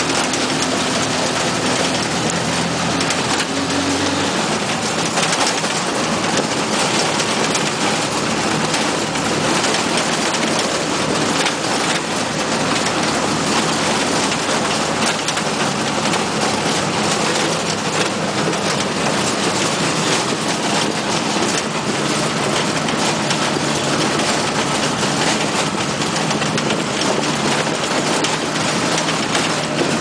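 Mototaxi (three-wheeled motorcycle taxi) driving along a road: its small engine running under a steady, loud rush of wind and road noise.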